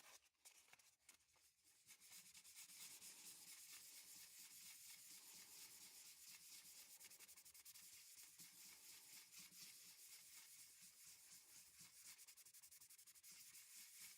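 Faint, steady scratching of sandpaper rubbed by hand over a pocket knife's acrylic handle, starting about two seconds in.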